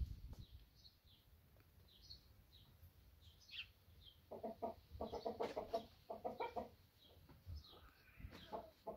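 A white hen clucking softly while dust bathing: three short runs of quick, low clucks between about four and seven seconds in, and a brief run near the end. Faint high chirps of small birds come and go in the background.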